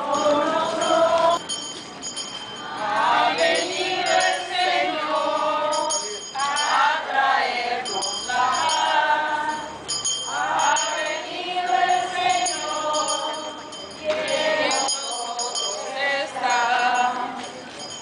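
A crowd of people singing a hymn together while walking in procession, in phrases a few seconds long with brief breaks between them.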